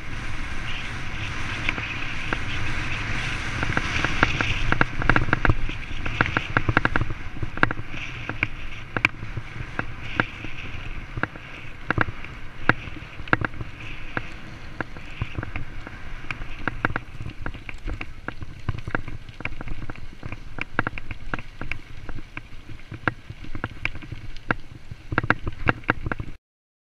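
Mountain bike rolling fast over a gravel and dirt track: a steady rush of tyre and wind noise with frequent rattles and knocks from the bike over bumps. It cuts off suddenly just before the end.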